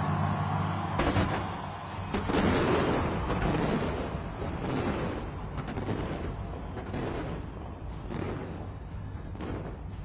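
Fireworks going off in a rapid, irregular series of bangs and pops, starting about a second in, with the loudest bursts around two to three seconds in.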